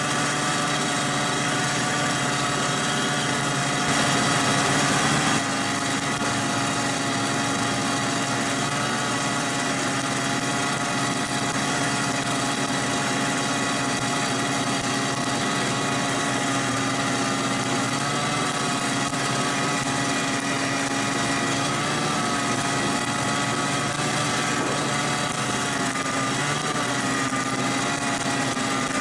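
Snowmobile engine running steadily at trail speed, heard from on board the sled, its pitch wavering slightly.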